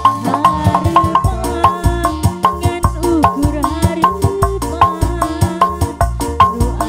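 Sundanese jaipong-style song: a woman sings gliding, ornamented phrases over a keyboard and a steady, busy drum rhythm.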